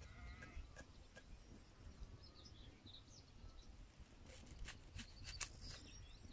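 Faint chirps of small birds, then a cluster of crisp clicks a little over four seconds in as a small knife cuts through a peeled onion on a flat stone.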